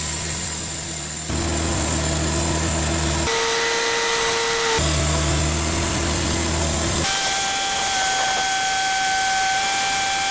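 Cook's AC36 band sawmill running with a steady hiss. The sound switches abruptly several times between a low machine drone and a higher steady whine.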